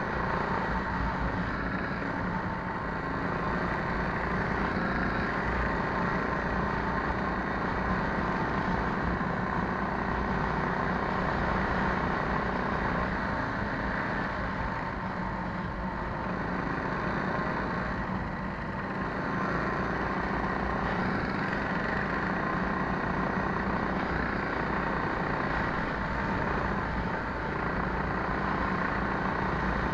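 Coleman minibike's small single-cylinder engine running at steady throttle while riding, heard from the bike itself, with its note dipping briefly a few times.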